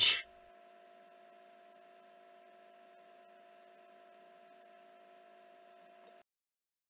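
Near silence: a faint steady electrical hum with a few steady tones, cutting off to dead silence about six seconds in.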